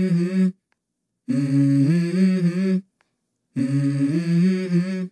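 A voice humming a wordless melody in held notes that step up and down in pitch, in phrases of about a second and a half broken by sudden dead-silent gaps. No cooking sounds are heard.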